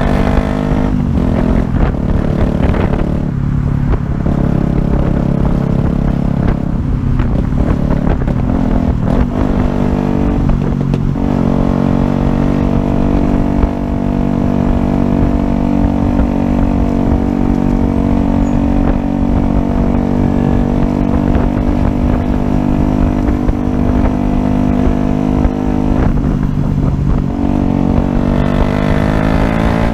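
Yamaha YZF-R125's single-cylinder four-stroke engine running while riding. Its pitch shifts in the first few seconds and again about eleven seconds in, holds steady through the middle, and rises near the end as the bike accelerates.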